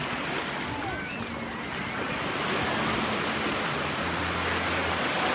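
Ocean surf washing onto the beach, a steady rush of waves that swells a little partway through.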